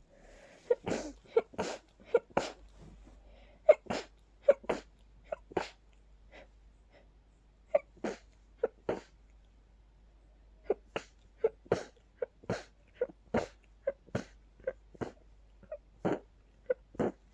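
A person's rapid sneezing fit from a pollen allergy: about thirty short sneezes in quick succession, often in pairs or threes, mostly held back and stifled.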